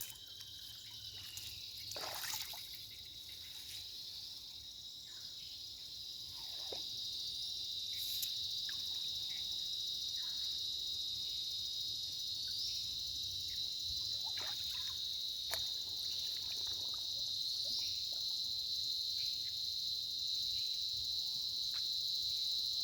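Steady high-pitched drone of insects calling at the riverside, with short rising chirps every few seconds and a few scattered clicks. It grows somewhat louder over the first several seconds.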